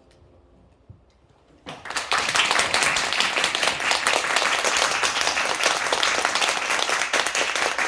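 Audience applause: after a moment of quiet, many people start clapping about two seconds in and keep clapping steadily.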